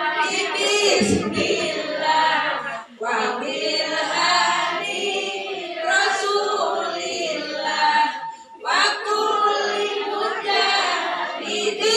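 A group of women singing together without accompaniment, in long phrases broken by brief pauses about three seconds in and again at about eight and a half seconds.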